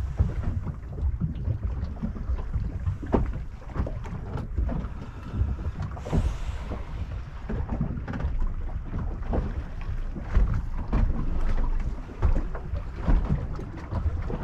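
Wind rumbling on the microphone, with irregular knocks and slaps of water against the hull of a small Polycraft polyethylene boat, and a brief hiss about six seconds in.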